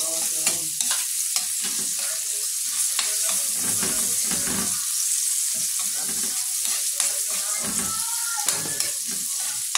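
Chopped garlic and onion sizzling in oil and margarine in a metal wok, frying until lightly toasted, while a metal spatula stirs them and scrapes and clicks against the pan.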